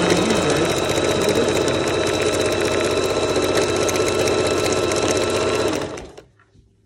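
Electric sewing machine stitching at a steady speed, the needle going up and down rapidly over a constant motor whine. It stops about six seconds in.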